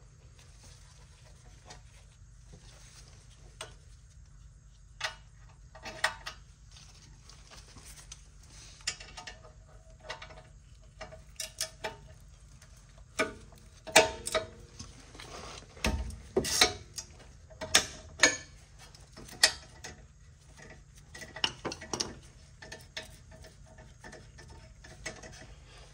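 Irregular metallic clicks and clinks of hand tools working on a car's rear brake caliper, several ringing briefly, with the loudest knocks in the middle stretch.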